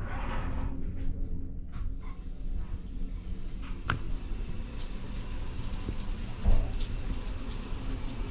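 A shower is turned on: water starts hissing steadily from the shower head about two seconds in. There is a sharp click from the chrome mixer partway through, and a single loud thump later.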